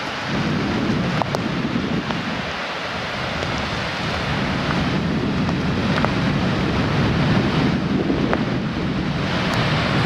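Wind buffeting the microphone in uneven gusts over a steady hiss, loud and continuous.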